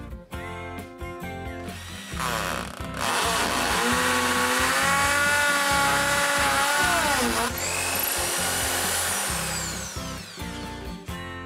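Bosch PSB 650 RE hammer drill on hammer action, drilling into the wall behind a tile: a short burst about two seconds in, then a loud run of about four seconds, after which the motor's whine falls away as it spins down. Background music plays before and after.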